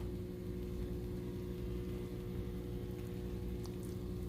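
Steady low hum with a few faint light taps.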